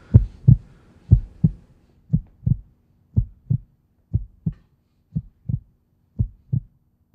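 Heartbeat sound effect: paired lub-dub thumps about once a second, with a faint steady hum underneath from about two seconds in.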